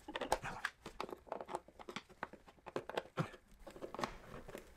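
Irregular small clicks, scrapes and crinkles of a pick tool and gloved hands working at the plastic airbox of a dirt bike.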